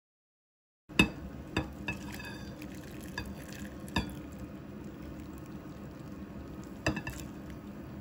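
Hot malatang broth and vegetables being poured from a stainless steel pot into a glass bowl: a steady pouring, sloshing noise with a few sharp clinks of the pot against the bowl, the loudest about a second in and another near the seventh second.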